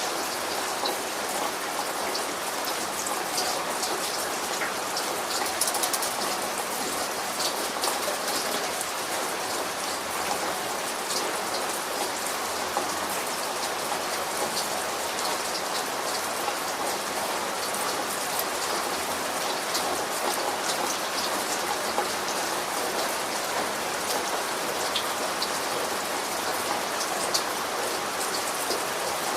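Steady rain falling, with many close drops pattering on a surface. It keeps an even level throughout.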